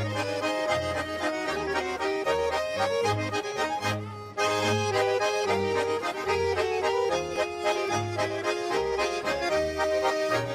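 Ländler played in Bernese Örgeli style by Schwyzerörgeli (Swiss diatonic button accordions) with a double bass, a lively dance tune with the bass sounding short notes on the beat. The music briefly drops out about four seconds in, then carries on.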